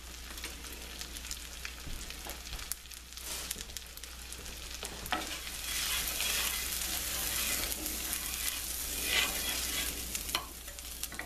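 Panko breadcrumbs sizzling in melted butter in a nonstick frying pan, stirred with a wooden spoon that scrapes across the pan as they toast. The sizzle grows louder about halfway through.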